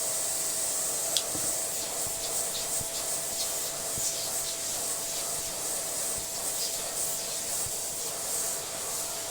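Dyson Small Ball Allergy upright vacuum cleaner running steadily, a motor whine held at one pitch over a strong rush of air, with scattered light clicks and ticks as it sucks dust off the dirty filter and bin parts of an old Dyson DC07.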